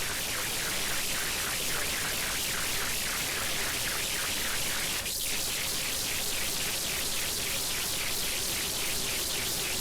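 Synthesizer and musique concrète music: a steady hiss of synthesized noise with filtered swells pulsing about three times a second. A click comes about halfway through, after which the pulses sound brighter.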